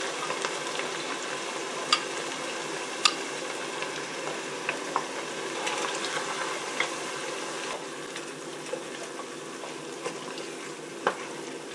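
Chopped onions and tomato paste frying in oil in an enamelled pot, a steady sizzle, while a wooden spoon stirs them, knocking against the pot a few times.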